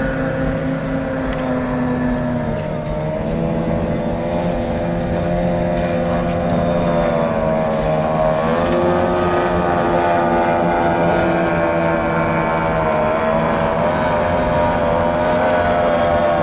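Several stock outboard racing hydroplanes running flat out, their two-stroke outboard engines whining at high revs. The pitches drift and glide as the boats pass and turn, and the sound grows louder as one boat comes close near the end.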